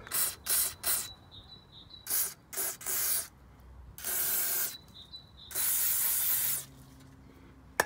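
Aerosol degreaser hissing out through a straw nozzle onto a corroded brake calliper, in a string of bursts: short squirts at first, then longer sprays of about a second. A single sharp click near the end.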